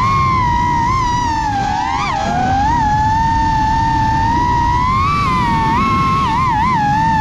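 FPV quadcopter's four BH Avenger 2507 1500kv brushless motors spinning 6-inch DAL 6048 props: a high whine that glides up and down in pitch with the throttle, dipping about two seconds in and climbing again near five seconds, over a rush of wind.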